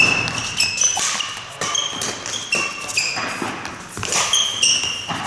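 Badminton doubles rally: sharp racket strikes on the shuttlecock mixed with quick footsteps and many short, high shoe squeaks on the court floor.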